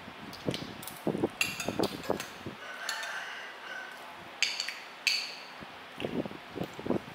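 Spoons and forks clinking and scraping on ceramic plates during a meal, with a few sharp ringing clinks and softer knocks throughout.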